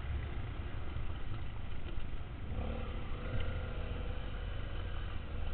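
Dual-sport motorcycle engine running under throttle on a dirt track, heard from a helmet-mounted camera under a heavy low rumble. About halfway through, a steady engine note comes up above the rumble.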